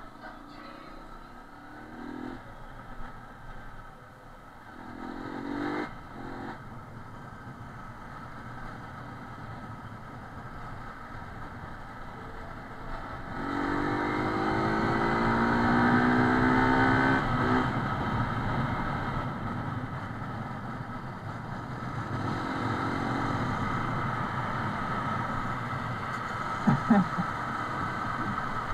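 Small single-cylinder motorcycle engine running under way, with road and wind noise, through an action camera's built-in microphone. The engine pitch climbs in a few short pulls, the longest and loudest about halfway through as the bike accelerates. A couple of short knocks near the end.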